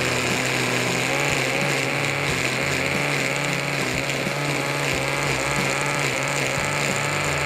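Countertop blender motor running steadily under load, grinding a thick muhammara of roasted red peppers and peanuts; its whine wavers slightly as the mix churns. The sauce is slow to blend because the nuts must be ground completely.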